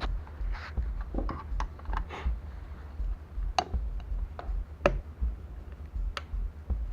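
Scattered light clicks and a few sharp metallic taps from engine parts and hand tools being handled during engine assembly, over a steady low hum.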